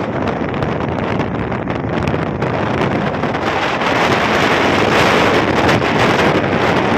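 Wind buffeting the microphone of a moving vehicle, a steady loud rush mixed with road noise.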